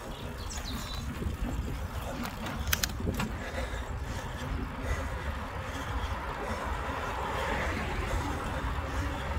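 Riding noise from a Carrera Kraken mountain bike: wind buffets the handlebar-mounted phone's microphone over the rolling of the tyres, with a few sharp clicks about three seconds in. The rushing grows a little louder near the end.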